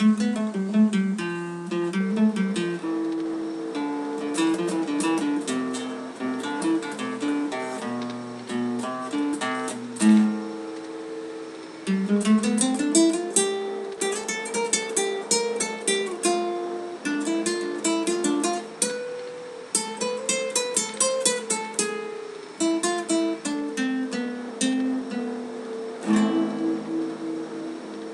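Solo acoustic guitar (violão) music: a melody of quick plucked notes in runs, played without other instruments or voice.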